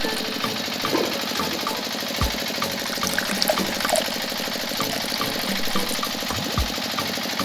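A small motor running steadily with a fast, even rattle, with a few clicks and low thumps.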